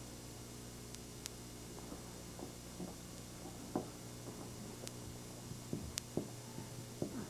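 Quiet room tone with a steady low hum, broken by a scattering of faint soft taps and rustles.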